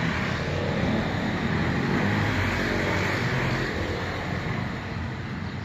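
Motorcycle engines running as a group of motorcycles moves off, the sound easing a little near the end.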